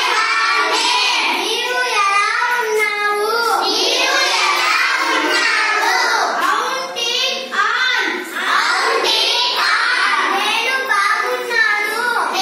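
Children singing.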